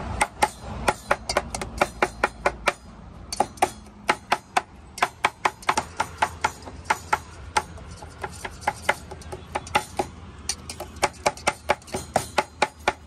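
A knife blade chopping and mashing avocado in a steel bowl: quick rhythmic clinks of the blade striking the bowl, about three or four a second, in runs with short pauses.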